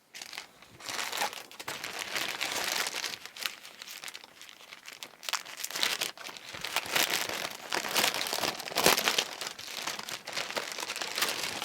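Crinkling and rustling of a cross-stitch kit's packaging as it is handled, in quick irregular bursts.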